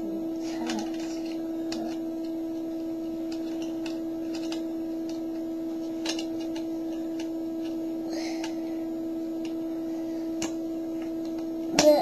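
Plastic parts of a snap-together electronics kit clicking now and then as they are handled and pressed onto the base grid, over a steady hum.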